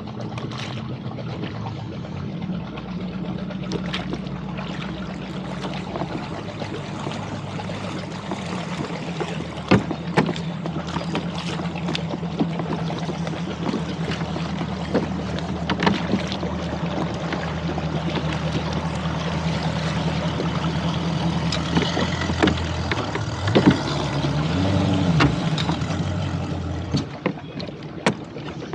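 An engine idling steadily, revving up and back down once near the end, with scattered knocks and clunks.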